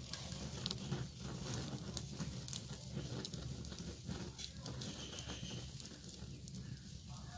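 Freshly lit wood fire catching and burning in an open clay fire pit: a steady low rumble of flames with scattered sharp crackles and pops.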